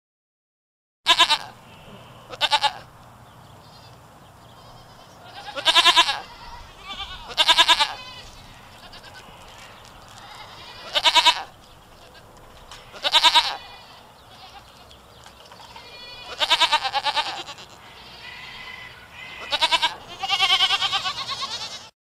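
Goats bleating: about nine separate high, quavering bleats, starting about a second in, some short and some drawn out, with a few seconds between them.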